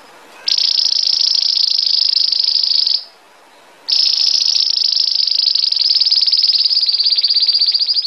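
Belgian canary singing two long, fast, high rolled trills of its bell-like 'campainha' tour, with a short pause between them. The second trill is longer and its pulses spread out slightly towards the end.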